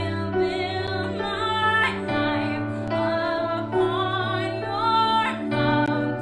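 A woman sings a worship song, accompanying herself on an electronic keyboard. Her voice rises and falls over held chords that change about every two seconds.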